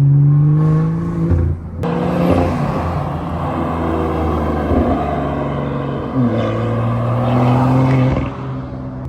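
BMW 335i's N55 turbocharged inline-six accelerating past, the engine note rising in pitch as it pulls hard. It breaks off abruptly about two seconds in, then runs loud and rough before a second rising pull near the end that fades away.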